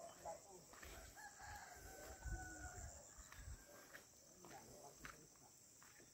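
A rooster crowing once, faintly, starting about a second in and held for about a second and a half, over a steady high drone of insects.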